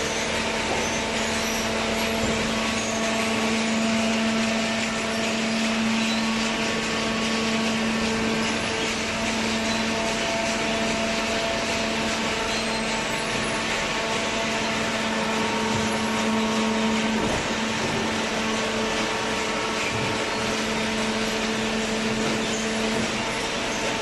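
Hydraulic waste paper baler running: its hydraulic power unit gives a steady hum over a continuous machine noise.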